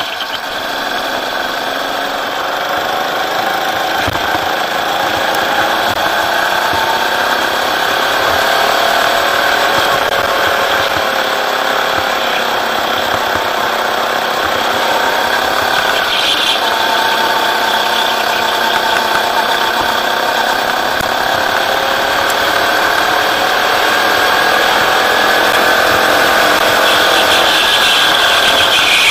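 Rental go-kart's engine running hard, its pitch rising and falling as the throttle is worked through corners and straights, over a steady hiss of road and wind noise.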